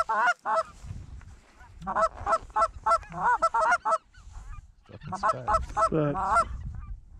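A hand-held goose call blown in rapid bursts of loud, close honks and clucks, imitating Canada geese to bring in a passing flock. There are three runs of calling with short pauses between them.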